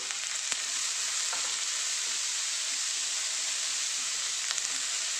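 Chopped onions, green chillies, curry leaves and crushed ginger-garlic sizzling in hot coconut oil in a metal pan as they start to sauté. A wooden spatula stirs them, with an occasional light click against the pan.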